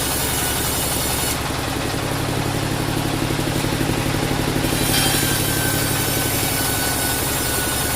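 Band sawmill machinery running with a steady engine-like drone. The drone pulses through the middle, and a thin steady whine comes in about five seconds in.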